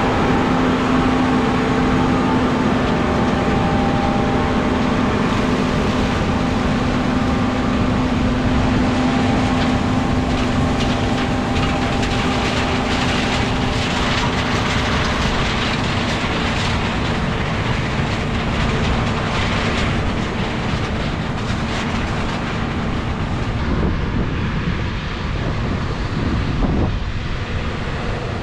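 Large diesel harvest machinery running steadily, a constant heavy rumble with a steady hum that fades out about three-quarters of the way through.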